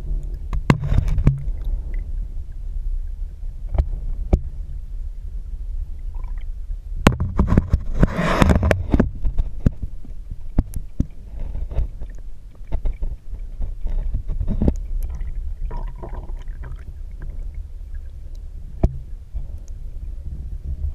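River current heard through an underwater camera: a muffled low rumble with scattered sharp knocks, and a louder gurgling stretch of about two seconds starting about seven seconds in.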